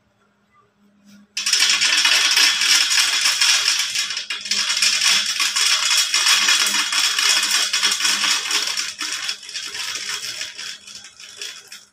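Shelled peanuts poured in a steady stream from a winnowing tray onto a steel plate, rattling continuously, as they are winnowed to separate them from their husks. The stream starts suddenly about a second and a half in and thins out toward the end.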